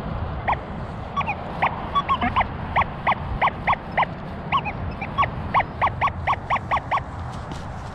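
Metal detector giving a quick series of short, steady-pitched beeps, roughly three a second and closer together near the end, as its coil is swept over targets in the ground.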